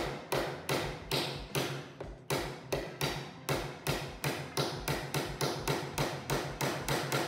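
A hammer driving nails into a wooden kit piece, struck quickly and evenly about three times a second.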